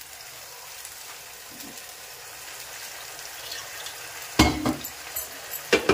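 Ground masala paste sizzling steadily in hot oil in a kadhai, with two sudden loud sounds in the last second and a half.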